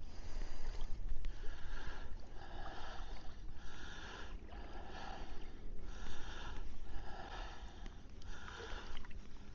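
Legs wading through shallow water, a sloshing swish with each step about once a second, over a low rumble of wind on the microphone.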